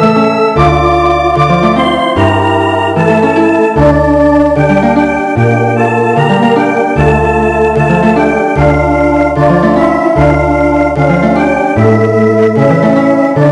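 Instrumental organ-toned keyboard playing a North European folk melody: a slow tune of held notes over a bass line that moves note by note about once a second.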